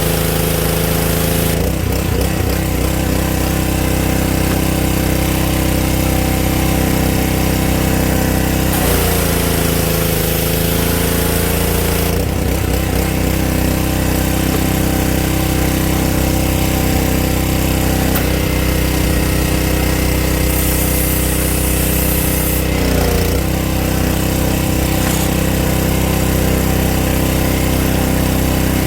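Honda GC190 single-cylinder engine on a Champion pressure washer running steadily at full speed. Its pitch wavers briefly a couple of times.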